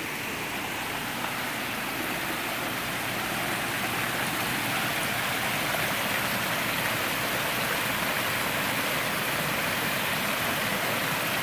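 Small tiered rock waterfall pouring into a koi pond: a steady rush and splash of falling water that grows louder over the first few seconds, then holds steady.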